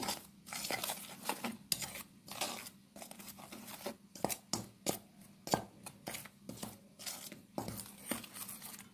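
Metal spoon stirring dry flour and ground spices in a stainless steel bowl: irregular scraping strokes and light clinks against the metal.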